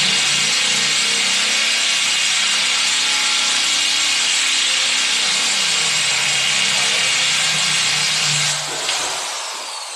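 Corded electric drill running steadily under load while drilling, then winding down about a second before the end.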